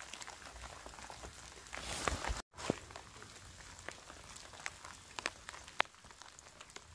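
Light rain: an even hiss with scattered single drops ticking, at first on a tent flysheet. About two and a half seconds in the sound cuts out for an instant, then the rain goes on with a few sharper separate drips.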